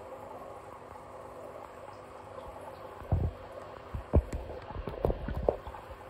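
Several dull knocks and bumps from the camera being handled and moved, bunched between about three and five and a half seconds in, the loudest a little past four seconds, over a steady low hiss.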